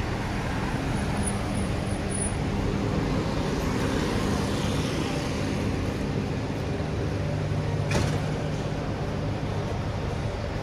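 Street traffic with a motor vehicle's engine running close by, a steady low hum. A single sharp knock comes about eight seconds in.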